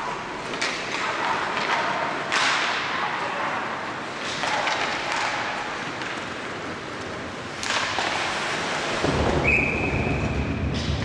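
Ice hockey rink during play: skates scraping and sticks and puck clacking, with several sharp knocks of puck or players against the boards echoing in the arena. Near the end a referee's whistle blows one steady note for about a second and a half, stopping play.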